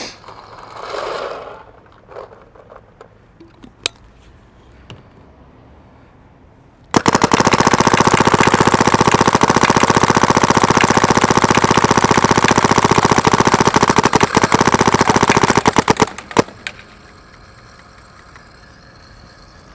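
SP Shocker XLS paintball gun firing a long, rapid, unbroken string of shots for about nine seconds, starting about seven seconds in. A few faint clicks and handling sounds come before it.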